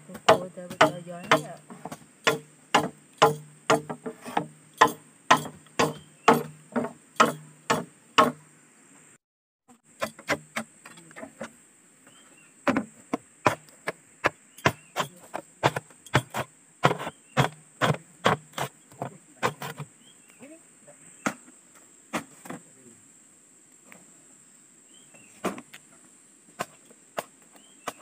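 Machete chopping into green bamboo poles, sharp strikes about two a second, stopping briefly near nine seconds, resuming, then thinning to scattered blows in the last third. A steady high buzz of insects runs underneath.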